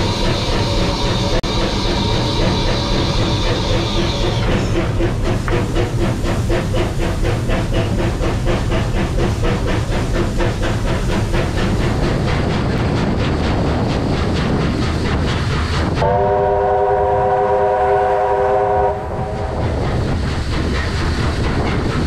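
Steam locomotive 3801, a C38 class Pacific, running under way with a quick, even beat of about five strokes a second. About two-thirds of the way in, a train whistle is blown for about three seconds.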